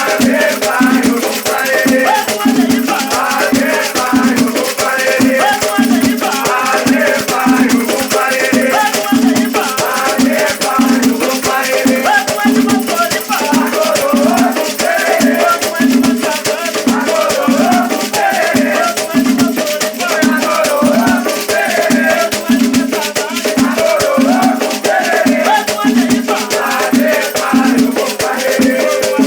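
Afro-Brazilian batuque ritual music: voices singing a chant over a fast, continuous shaker rattle and a steady low drum beat.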